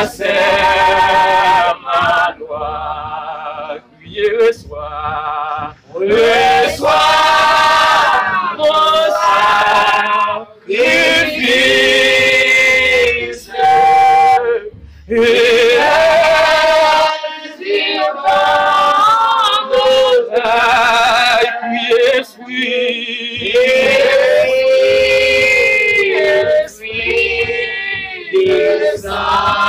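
Men and women singing a worship song together in phrases, with short breaks between the lines.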